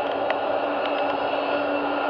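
Boeing 747-400 freighter's four turbofan engines running at low taxi thrust as the jet turns onto the runway: a steady hiss with a few held whining tones.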